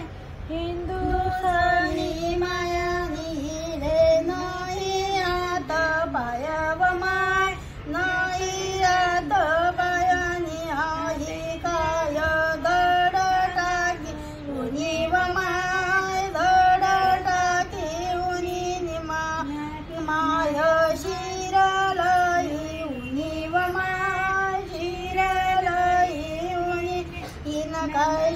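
A single high voice singing a Kanbai Mata devotional folk song in short, repeated melodic phrases.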